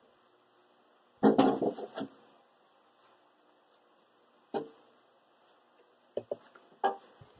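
Hood of a lapidary machine being fitted into its drip pan: a clattering rattle of the parts about a second in, then a single knock and a few light knocks near the end.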